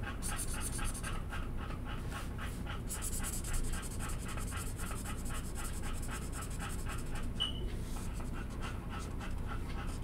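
A dog panting in a quick, even rhythm of short breaths.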